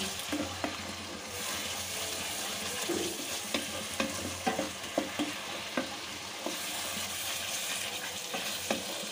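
Thick spice paste (masala) sizzling in oil in a kadai while a spatula stirs and scrapes it, giving irregular light clicks against the pan over a steady frying hiss. This is the masala being fried down (kasha) before water is added.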